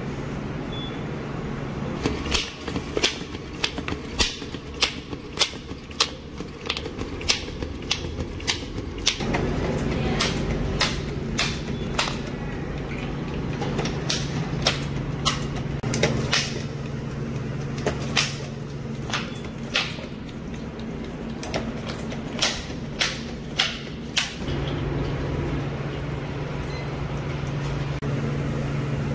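Commercial donut-making machinery running: a steady motor hum with a long run of sharp mechanical clicks, one or two a second, that stop a few seconds before the end.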